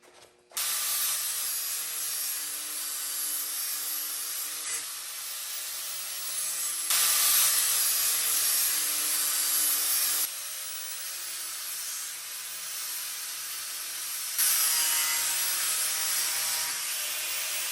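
Power grinder grinding a metal piece for a roll cage: a steady loud grinding hiss over a faint motor whine, starting about half a second in. It jumps louder about seven seconds in, drops back near ten seconds, and grows louder again near fourteen seconds.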